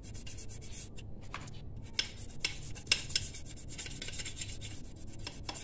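A small stiff brush scrubbing loosened paint off a Yamaha RX-King aluminium engine case in short, irregular strokes.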